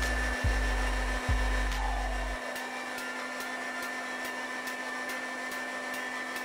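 Electric meat grinder with a sausage-stuffing nozzle running at low speed, a steady motor hum as minced meat is forced into a pork casing. A few low thumps and a low rumble sound over the first two seconds or so, then the rumble drops away and the hum carries on alone.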